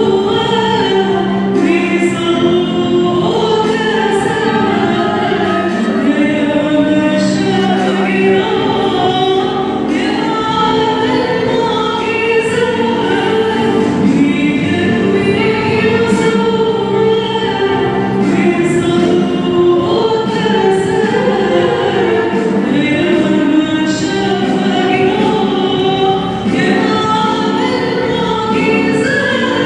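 Church choir singing a hymn together through microphones, in continuous phrases with long held notes.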